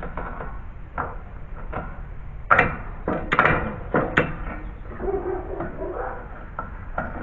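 A nail puller and hammer working a tight nail out of deck lumber: several sharp metal-on-wood knocks, the loudest three about a second apart in the middle.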